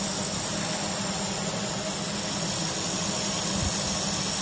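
Automatic laser welding machine running while its head welds a seam in galvanized sheet: a steady machine hum with a constant high hiss.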